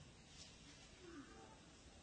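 Near silence, with one faint short call falling in pitch about a second in, from a macaque.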